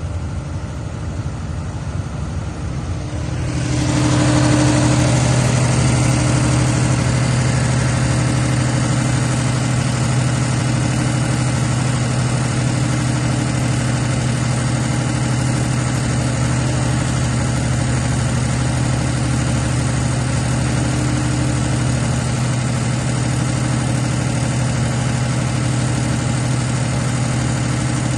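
220 kVA Cummins diesel generator set running. About three and a half seconds in it grows louder and fuller, then runs on at a steady pitch and level.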